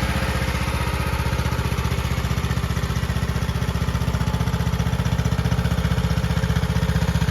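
Gas engine of an AGT YSRT14 mini skid steer loader running steadily at idle with an even, rapid firing pulse, just after being started on a little choke.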